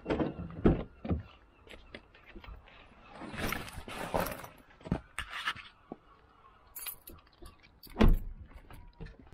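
Car door handle pulled and the door opened with a few clunks, then keys and loose items rattling and rustling about three seconds in, and a car door shut with a heavy thump about eight seconds in, the loudest sound.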